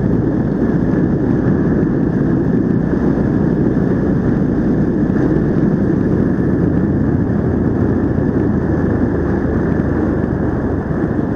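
Honda XR 150 motorcycle being ridden at a steady pace: a steady, dull rumble of its single-cylinder engine mixed with wind and road noise on the bike-mounted camera's microphone.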